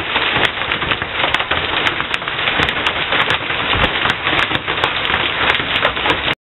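Heavy rain mixed with hail falling on a bus shelter and the paved street: a dense, steady hiss full of sharp clicks from hailstones striking. It cuts off suddenly near the end.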